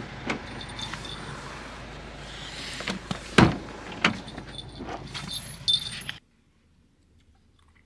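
A van's driver door being unlocked and opened: keys jangling, scattered clicks of the handle and latch, and one loud clunk about three and a half seconds in. The sound cuts off abruptly about six seconds in.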